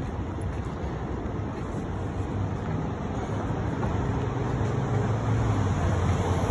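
Road traffic on a multi-lane city street: a steady low rumble of passing cars and trucks, slowly growing louder, with an engine hum strongest in the last few seconds.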